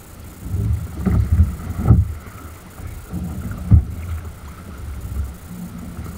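Wind buffeting the microphone and a choppy sea slapping against a kayak's hull in gusty rumbles, with a sharp knock about two seconds in and a louder one just before four seconds.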